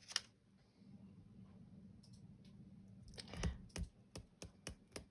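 Small sharp clicks and taps: one just after the start, then a quick run of about eight in the last two seconds, the sound of small hard objects being handled.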